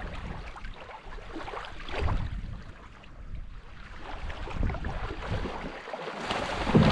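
Shallow seawater lapping at the shoreline, with wind buffeting the microphone, and a louder splash near the end as sharks thrash in the shallows.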